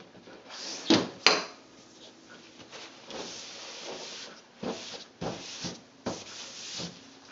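Two sharp clacks about a second in as a metal bar is laid down on the tray, then repeated rubbing, swishing strokes of a brush spread over photogravure gelatin tissue, coating it with sensitizer.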